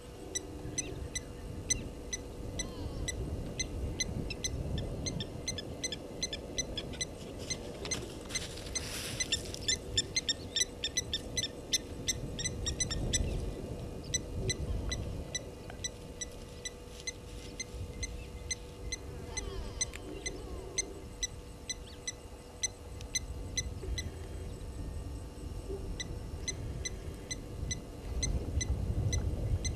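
Rapid series of short, high-pitched animal chirps, several a second, pausing for a few seconds midway, over low wind rumble and a faint steady hum.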